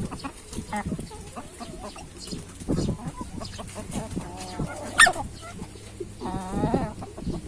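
A hen hiccuping from eating too greedily: short, sudden hiccup-like sounds mixed with clucking calls, two of them drawn out, near four and a half and six and a half seconds in. The loudest sound is a single sharp click about five seconds in.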